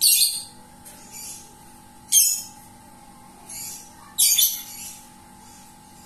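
Pet lovebird giving sharp, high-pitched squawks: three loud ones about two seconds apart, with fainter calls in between.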